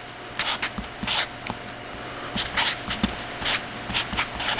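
A pen writing: a string of short, scratchy strokes in irregular groups, with faint low knocks of the pen on the writing surface.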